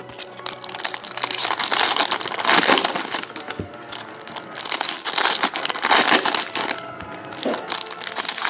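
Plastic baseball card packaging crinkling and crackling in quick, irregular bursts as it is handled and torn open.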